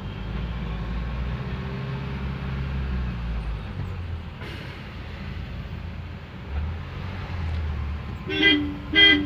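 Steady low rumble of car engine and road noise heard from inside the car's cabin, then two short vehicle horn honks about half a second apart near the end.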